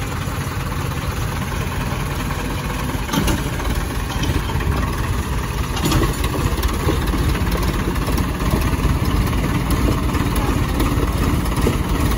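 Diesel tractor engines running steadily, a little louder from about three seconds in, with a couple of short knocks about three and six seconds in.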